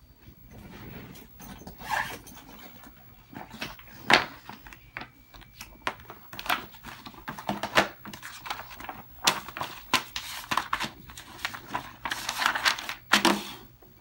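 A large sheet of paper being handled, unfolded and spread flat on a table: irregular crinkles and rustles with a few sharper snaps of the paper, the loudest about four seconds in, and a longer rustle near the end.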